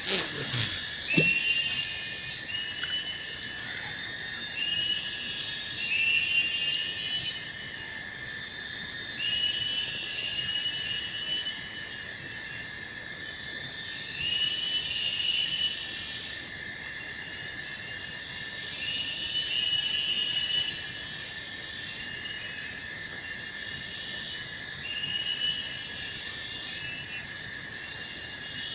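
Steady chorus of wild insects and frogs at a riverbank, with a repeating two-part call coming back about every four to five seconds. A short knock sounds right at the start.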